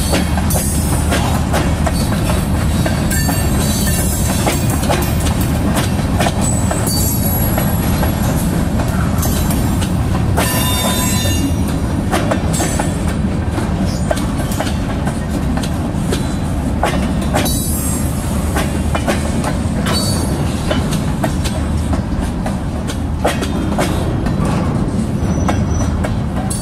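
Freight cars rolling past at close range, covered hoppers and then empty centerbeam lumber flatcars. The steel wheels rumble and clack irregularly over rail joints, with short high-pitched wheel squeals now and then. The last car passes near the end.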